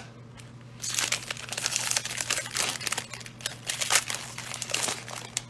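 Plastic wrapper of a Donruss football card pack crinkling and tearing as it is ripped open by hand. The crackling starts about a second in and goes on in a dense run of crackles, loudest near the end.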